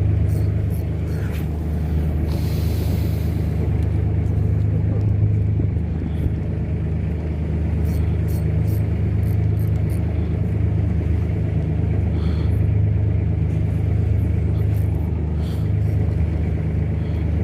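A fishing boat's engine running with a steady low drone, under wind noise, with a brief rush of hiss about two seconds in.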